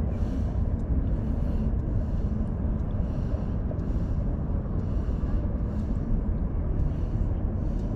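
Steady low outdoor rumble, with a soft hiss that swells and fades about once a second.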